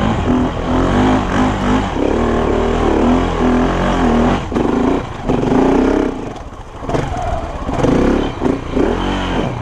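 KTM 690 Enduro's single-cylinder engine pulling hard up a steep sandy hill climb, the throttle opening and closing in surges, easing off about two-thirds of the way through before picking up again.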